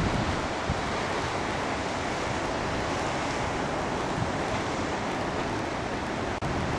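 Ocean surf washing over and around coastal rocks, a steady rushing of waves, with some wind on the microphone. It drops out for a moment near the end.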